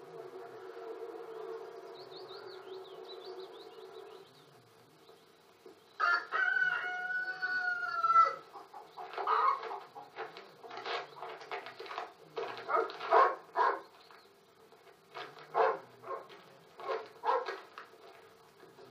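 A steady low hum with faint high chirps, then a rooster crows once, a drawn-out call of about two seconds, six seconds in. A hen follows with a long run of short clucks, in irregular bunches, to the end.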